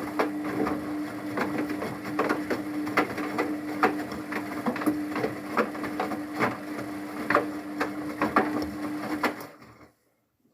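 Luxor WM 1042 washing machine running its rinse cycle: a steady motor hum with irregular knocks and clicks as the drum turns, cutting off suddenly near the end.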